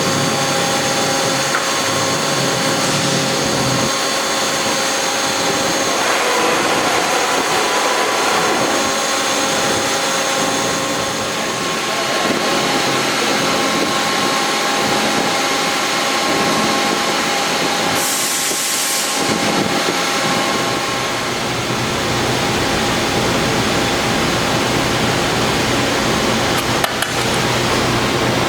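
Hydraulic CNC press brake running under power: a steady hum with constant high whining tones, a short hiss about eighteen seconds in, and a deeper rumble joining about twenty seconds in.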